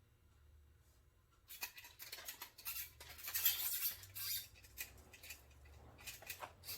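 Rope being pulled through a grow-light rope pulley: after a quiet second and a half, a run of rasping, scratchy strokes and clicks, loudest near the middle.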